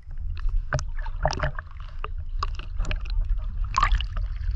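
Water splashing and sloshing in a shallow stream, a run of irregular short splashes over a steady low rumble.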